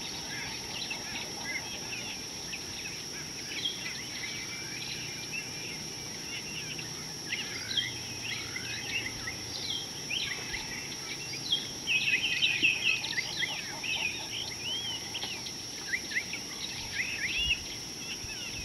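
Several wild birds chirping and calling, with a quick run of repeated notes about twelve seconds in, over a steady high-pitched tone.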